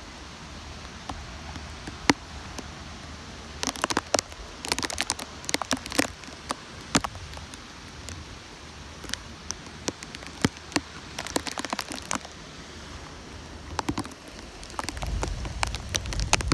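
Rain from a tropical storm falling steadily, with drops landing close by as sharp irregular ticks that come in clusters. A low rumble comes in near the end.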